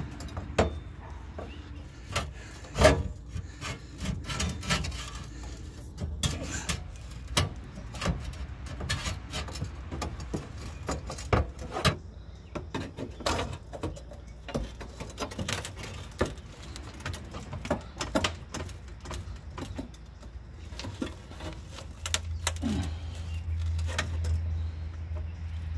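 Irregular metallic clanks, taps and scraping as a new rear fuel tank strap is worked into place around the fuel tank and fastened. A steady low hum runs beneath and grows louder near the end.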